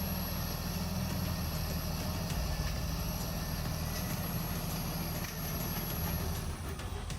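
Diesel engine of a heavy bulldozer running steadily with a low hum.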